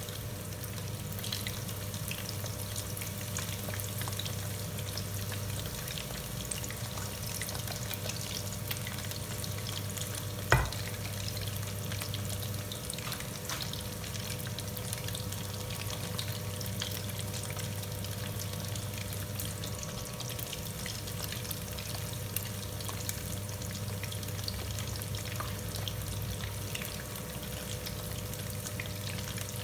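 Battered chicken feet frying in hot oil: a steady crackling sizzle over a low hum, with one sharp knock about ten seconds in.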